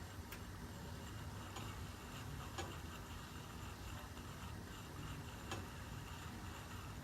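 Utica (Dunkirk) steam boiler running as it makes steam: a steady low rumble with scattered faint ticks. The boiler is surging, which the owner puts down to boiler-water treatment with a pH of about 10 and a water line set too high.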